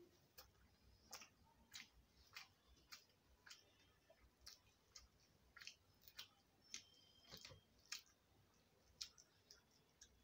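Faint eating sounds made by hand: soft wet clicks and smacks, about one or two a second, from chewing mouthfuls of rice and from fingers mixing rice and dal on a steel plate.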